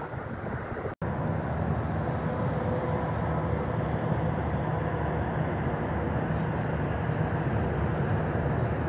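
A steady low rumble from an unseen vehicle, with faint steady tones above it, after a brief cut in the sound about a second in.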